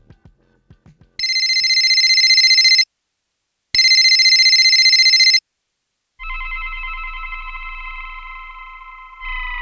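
A telephone bell rings twice, each ring about a second and a half long with a fast trill, then a sustained synthesizer note with a low bass under it comes in. A second note near the end slides downward in pitch.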